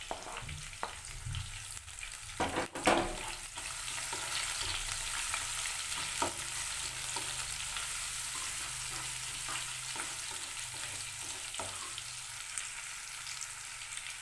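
Sliced shallots sizzling steadily in hot oil in a nonstick wok as they are stirred with a plastic slotted spatula. A few knocks and scrapes against the pan come in the first three seconds, the loudest a little before three seconds in.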